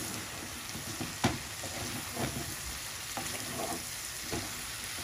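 Eggplant pieces sizzling in hot spiced paste in a nonstick wok, stirred with a wooden spatula that knocks and scrapes against the pan. A sharp knock about a second in is the loudest sound.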